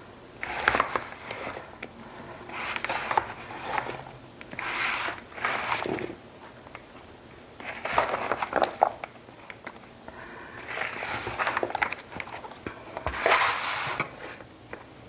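Silicone spatula stirring chunks of raw beef, tomatoes and potatoes with spices in a bowl: about six turning strokes, each a second or so long, scraping through the food against the bowl.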